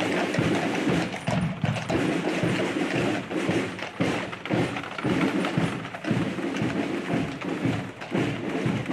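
Draft horse's hooves clopping on a paved street as it pulls a wagon, with people talking around it.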